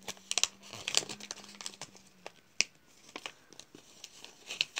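Small toy package being handled and worked open, its packaging crinkling and rustling in irregular small crackles and clicks.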